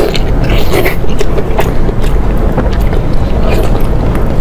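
Close-miked eating: chewing, biting and wet mouth clicks on braised pork, over a steady low rumble.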